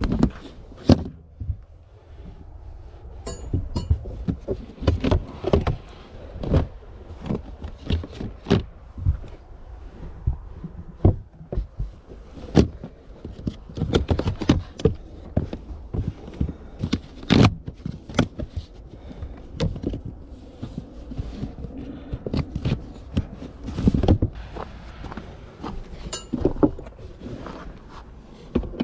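Gear being moved around in the open boot of a Ford Fiesta Mk7 hatchback: a stiff ribbed plastic boot tray and the rear seat are handled, giving many irregular knocks, thunks and scrapes.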